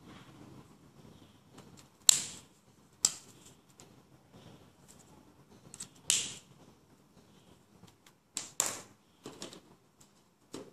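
Sharp plastic clicks and taps from a Copic marker and its cap being handled: one at about two seconds in, another a second later, one around six seconds in, and a few more close together near the end.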